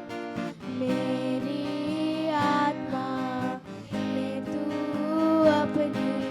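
Music performed by student musicians: a melodic piece of sustained pitched notes in phrases, with brief breaks between them.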